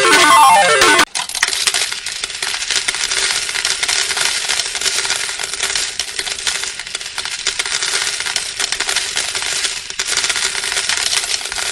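Cascade of coins pouring and clattering into a slot machine's metal payout tray, a dense continuous jingle. It starts abruptly about a second in, as guitar music cuts off.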